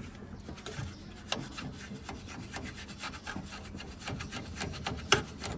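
Small bristle brush scrubbing dust out of a computer motherboard slot, a dry scratchy rubbing made of many short strokes, with one sharp click about five seconds in.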